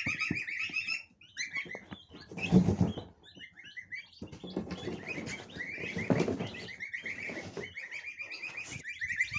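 Month-old goslings and turkey poults peeping in quick, continuous chirps, with bouts of rustling and scuffling about two and a half and five seconds in.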